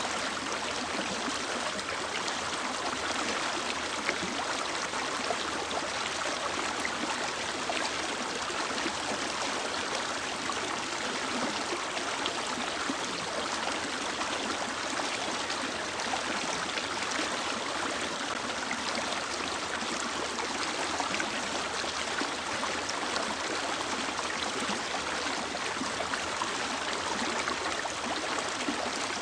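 Mountain river flowing over rocks, a steady rushing and splashing of running water.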